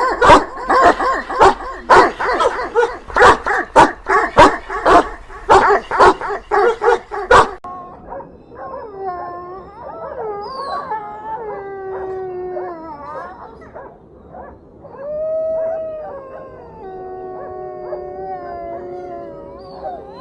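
Dogs barking rapidly and loudly, then about seven seconds in a sudden change to dogs howling in long, gliding calls that overlap one another.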